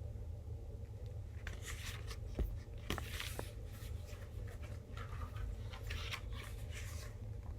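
Paper rustling as the glossy pages of a photobook are handled and turned, in several soft brushes with a couple of light taps, over a steady low hum.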